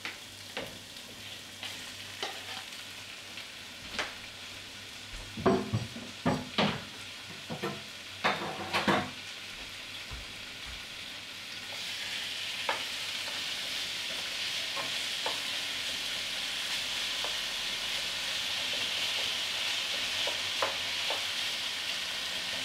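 Raw chicken pieces sizzling in a frying pan with browned peppers, with a cluster of sharp knocks and scrapes about five to nine seconds in as the chicken goes into the pan. About halfway through the sizzle turns louder and steadier as the pieces are stirred and spread out.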